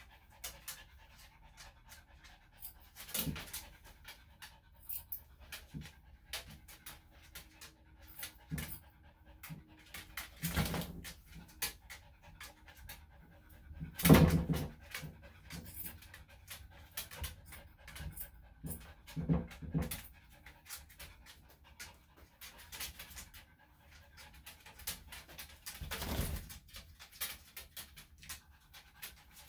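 Small Maltese/Shih-Tzu dog panting, with scattered clicks and rustling and a few louder knocks, the loudest about halfway through.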